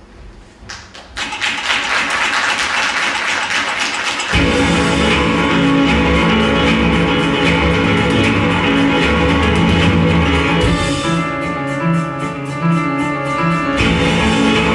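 Music for a stage dance number, starting about a second in; a heavy bass comes in about four seconds in and the music runs on at full level.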